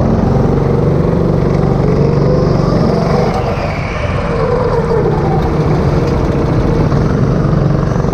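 Go-kart engine running under throttle, heard close up from onboard. It eases off briefly about three to four seconds in and then picks up again.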